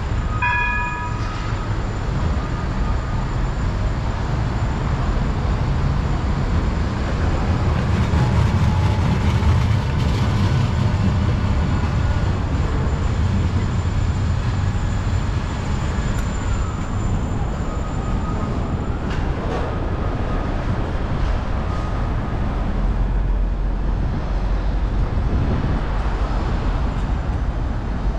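A city tram and street traffic running alongside the footpath: a steady low rumble that swells about a third of the way in, with a few short high tones right at the start and faint gliding tones in the second half.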